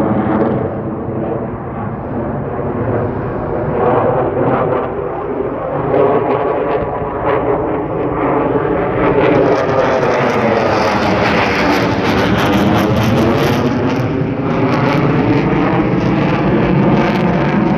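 Sukhoi Su-57 fighter jet's twin afterburning jet engines running loud and continuous during an aerobatic display. About halfway through, the sound swells and turns brighter and hissier, with a sweeping, phasing whoosh as the jet passes closest.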